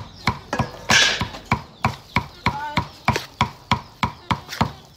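Rapid, regular chopping knocks, about four a second. A short clucking call comes about two and a half seconds in.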